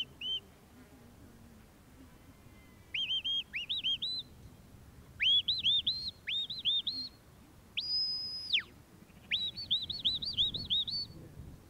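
Sheepdog handler's whistled commands to a working border collie: quick runs of short rising notes, and one long held high note about eight seconds in that drops away at its end.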